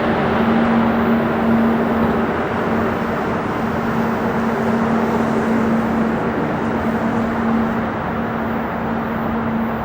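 Four-engine Airbus A340 jet airliner on approach, its engines giving a steady rushing roar with a low hum underneath, slowly fading as it moves away.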